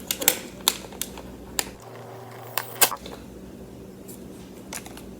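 Scattered light clicks and taps, about eight in all, from bowls and utensils being handled while preparing dough and powdered sugar.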